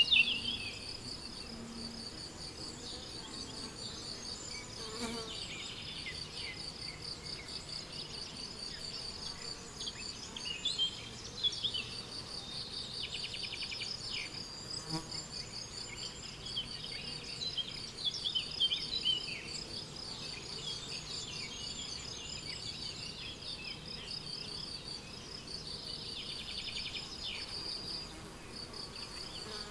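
Crickets chirping in a steady, even pulse, with songbirds singing short phrases every so often.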